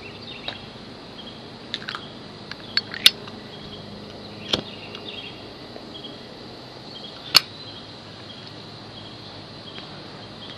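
Steady chirring of insects, crickets or similar, with a handful of sharp clicks and taps from handling the camera; the loudest clicks come about three seconds and seven seconds in.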